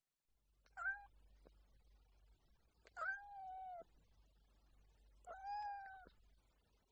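Domestic cat meowing three times: a short meow about a second in, then two longer, drawn-out meows.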